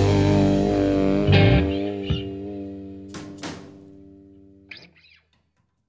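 Final electric guitar chord of a rock song left ringing and slowly fading, with a few sharp string scrapes along the way, dying away about five seconds in.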